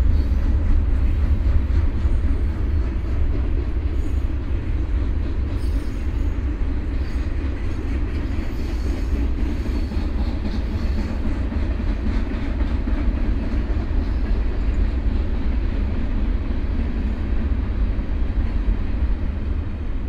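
Diesel freight train running, a steady deep rumble.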